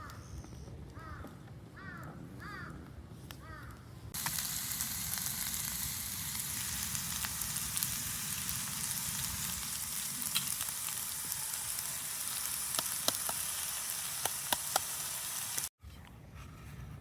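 A crow cawing several times, then food frying: a steady sizzle with scattered sharp pops that starts abruptly about four seconds in and cuts off shortly before the end.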